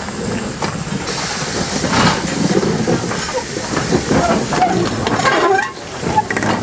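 WD 'Austerity' 0-6-0 saddle-tank steam locomotive rolling slowly past along the platform: a running rumble of the engine and wheels on the rails, with steam hissing from about a second in.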